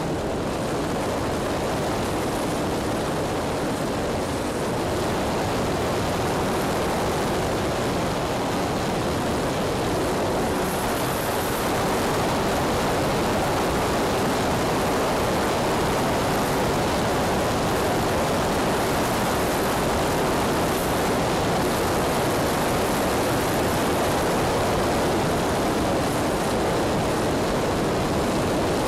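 Electric E-flite Sukhoi RC plane in flight, heard from on board: a steady rush of wind over the airframe mixed with its electric motor and propeller running, with a faint steady tone underneath.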